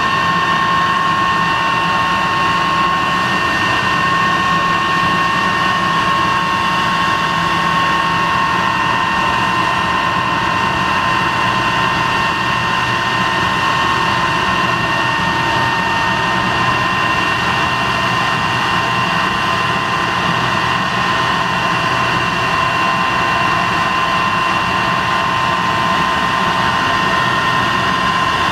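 De Havilland Venom jet fighter's de Havilland Ghost turbojet running steadily on the ground: a constant rush with a high, steady whine over it.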